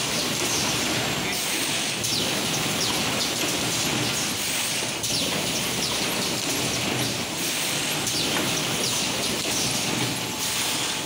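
Steady din of factory assembly-line machinery, with many short, high squeaks falling in pitch over it.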